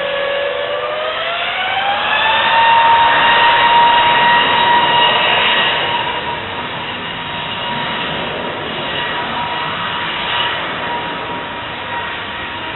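Airbus A321neo's Pratt & Whitney geared turbofan engines spooling up to takeoff thrust. A whine rises in pitch over about two seconds, then holds steady as the jet noise swells and slowly eases off.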